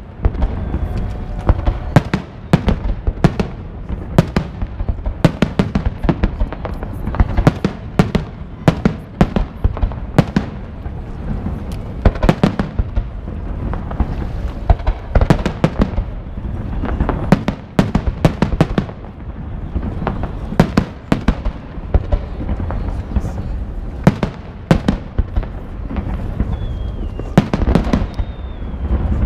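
Aerial fireworks display: shell bursts going off in a dense, irregular stream, several sharp bangs a second over a steady low rumble. A thin falling whistle is heard near the end.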